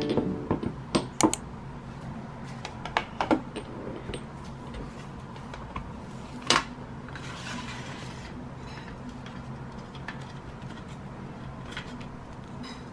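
Small glass bottles clinking and tapping as they are set down on a desk, with a handful of sharp clicks in the first few seconds. About six and a half seconds in comes one louder knock, then a short papery rustle as a box and cards are handled.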